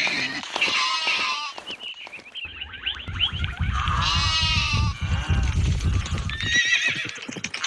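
A string of different animal calls, one after another, with a low rumble underneath through the middle.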